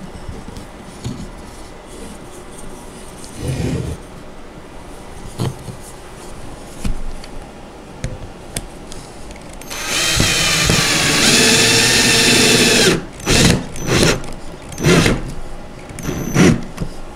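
Cordless drill driving screws through a wooden side panel into the ends of dowels: one steady run of about three seconds, then several short bursts of the motor. A few knocks of handling the parts come before.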